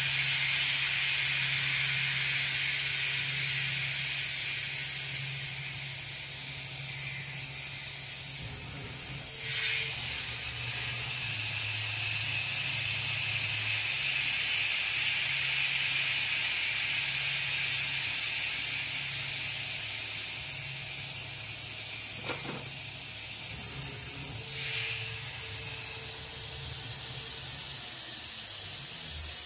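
Grizzly G0704 CNC mill cutting an aluminium block with an end mill, under a steady hiss of spray from the coolant nozzle and a low motor hum that steps on and off as the moves change. A few short sharp ticks of the cut stand out, and it turns quieter in the last few seconds as the cutter lifts out of the part.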